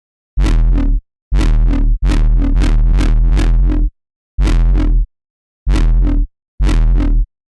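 Synthesized electronic bass played in short, heavy stabs with a deep sub-bass and a wobbling upper edge, each cutting off abruptly into silence; a longer held stab of about two seconds comes in the middle, among five shorter ones.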